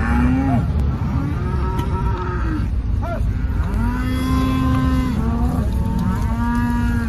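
A herd of cattle mooing, one long call after another with some overlapping, several held at a steady pitch for about a second. A low vehicle rumble runs underneath.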